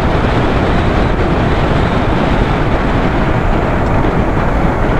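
Suzuki GS150 motorcycle on the move: a steady rush of wind over the microphone with the engine and road noise underneath.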